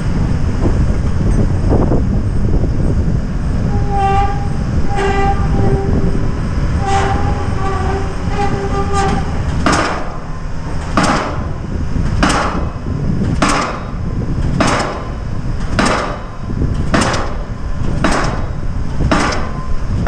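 Diesel pile-driving hammer driving a pile into the wharf: from about ten seconds in it strikes in a steady rhythm, a blow a little more often than once a second. Before the blows start, a few short pitched tones sound, over a low steady rumble.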